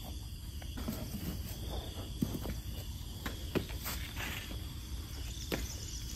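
Rubber boots being pulled on and a first few steps on a concrete floor: scattered soft knocks, scuffs and rustles. Behind them a steady high insect drone.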